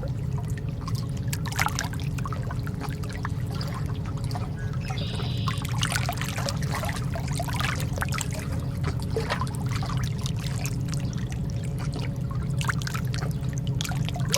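Calm sea water lapping and splashing in many small, irregular splashes over a steady low rumble.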